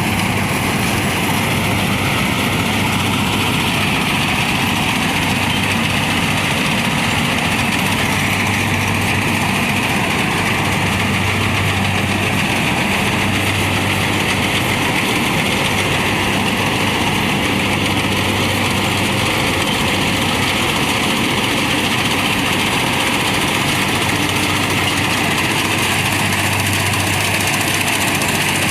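Kubota combine harvester's diesel engine running steadily while it harvests rice, a constant drone with a low hum.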